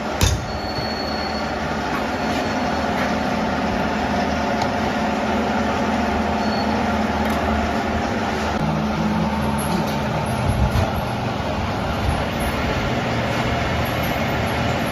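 Machinery running steadily in a metalworking workshop, a dense mechanical drone with a sharp click at the start and a brief high whine about a second in.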